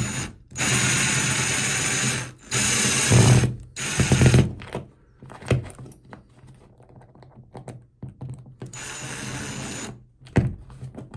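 Cordless power driver running in short bursts as it drives a toggle bolt screw through a towel bar's metal mounting bracket into drywall. It makes three loud runs in the first four and a half seconds, then a softer one later, with small clicks and knocks between them. The screw is being tightened so the toggle's wings pull up against the back of the wall.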